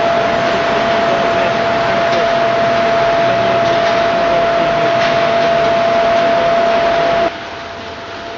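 Steady loud machinery noise, a rushing hiss with a steady whine running through it. About seven seconds in it drops abruptly to a quieter level.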